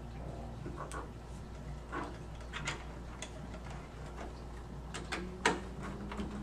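Light clicks and ticks of thin wire leads being handled and worked into the small screw terminals of a plastic alarm panel, over a low steady hum. The sharpest click comes about five and a half seconds in.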